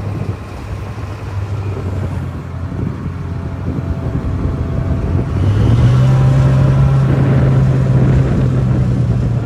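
An old forklift's Detroit Diesel engine running steadily. About halfway through it revs up, getting louder, and holds the higher speed.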